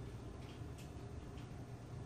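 Low, steady room hum with a few faint light clicks, three of them about half a second apart.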